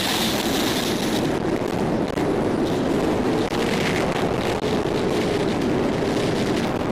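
Strong mountain wind buffeting the microphone: a steady rushing with a low rumble.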